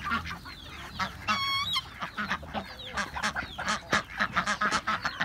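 Mixed flock of chickens, ducks and guinea fowl calling at feeding time: one drawn-out call about a second in, then a dense run of rapid, harsh, honking calls.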